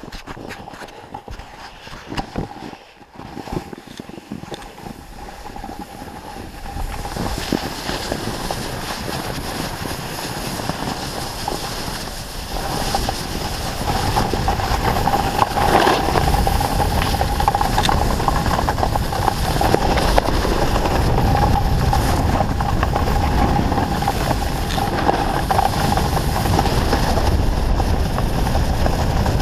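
Snowboard sliding and carving over fresh snow, with wind rushing over the body-mounted camera's microphone. It gets louder about seven seconds in and again a few seconds later as the board picks up speed.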